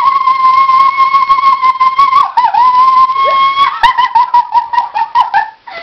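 A person makes a long, loud, high-pitched whistle-like sound as a funny noise, holding one pitch. It dips and wobbles briefly a couple of times before trailing off near the end.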